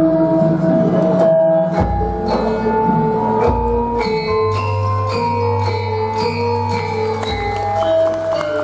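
Javanese gamelan music: bronze metallophones and kettle gongs ringing in a slow melody, with several deep gong strokes humming underneath.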